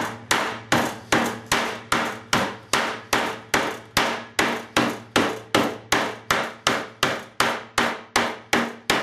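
Wooden rolling pin beating a slab of chocolate modelling paste flat on a plastic chopping board: a steady run of dull knocks, about three a second.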